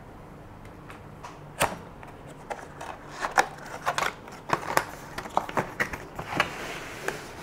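A cardboard box being opened by hand: flaps lifted and packaging handled, giving a run of clicks, taps and rustles. The sharpest click comes about a second and a half in, and there is a longer sliding rustle near the end.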